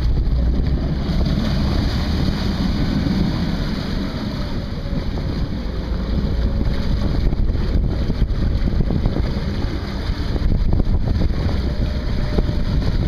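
A vintage harbour tug's engine running under way while its propeller churns up the water at the stern. Wind buffets the microphone throughout.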